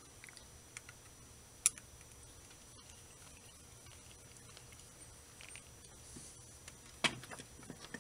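Small clicks and light scraping of a small screwdriver turning a screw into the housing of a hand-held turntable motor, with a sharp click a couple of seconds in and a louder knock near the end.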